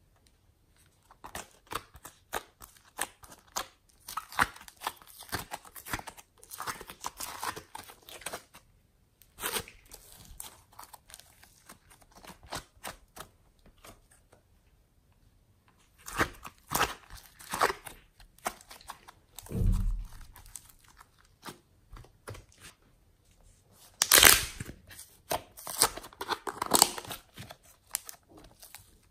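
Soft modelling clay being pulled and squeezed by hand, giving bursts of sticky crackling and tearing sounds with short pauses between them. A dull thump comes about twenty seconds in.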